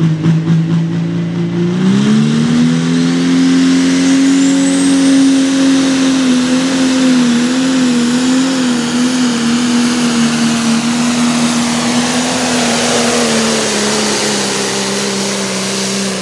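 Pro Stock pulling tractor's turbocharged diesel engine: a steady lower note, then about two seconds in it revs up to full throttle and holds high. The note wavers briefly in the middle and sags slightly near the end, with a high whine climbing in pitch as it comes up to speed.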